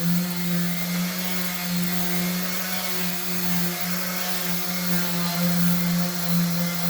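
Electric power tool motor running steadily, a hum at one unchanging pitch with a hiss over it.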